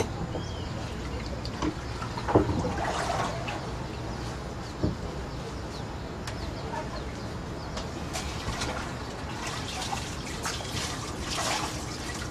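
River water splashing and sloshing in irregular bursts around a small boat, as water is scooped and poured over the side, over a steady low rumble.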